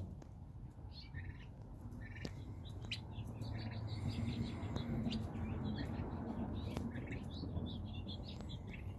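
Young turkey poults peeping, many short high chirps scattered throughout, over a low background rumble that swells in the middle.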